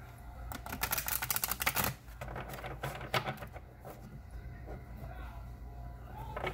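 A deck of oracle cards being shuffled by hand: a quick patter of card edges clicking for over a second, starting about half a second in, then a few more clicks around three seconds.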